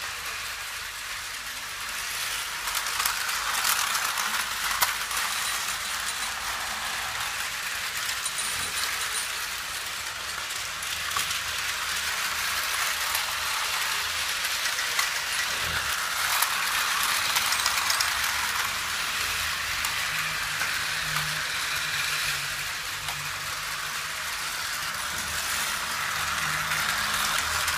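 Many Plarail battery-powered toy trains running together on plastic track: a steady rattle of small motors and wheels on the rails, with scattered clicks.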